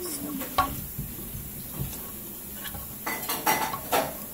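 Clinks and clatter of dishes and utensils: a couple of light knocks, then a burst of clattering about three seconds in.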